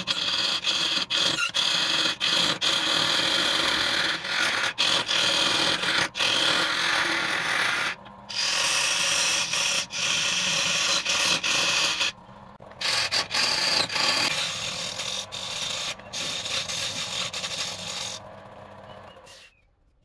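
Hand-held turning chisel cutting a spinning wood blank on a wood lathe: a continuous scraping, rasping cut, shavings tearing off the turning wood. It breaks off briefly twice as the tool lifts from the wood, runs softer over the last several seconds, and stops abruptly near the end.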